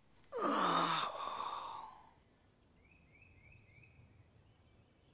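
A man's long, heavy sigh, voiced and falling in pitch, lasting about a second and a half. A few faint high chirps follow.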